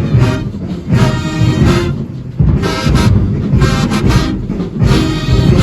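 Marching band playing: loud brass chords over heavy drums, in punchy blasts about once a second.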